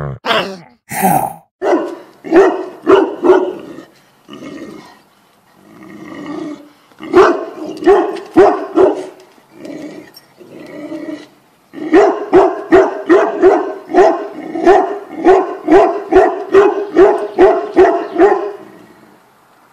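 A dog barking angrily: scattered loud barks with quieter sounds in between, then, about two-thirds of the way in, a fast unbroken run of about three barks a second that stops shortly before the end.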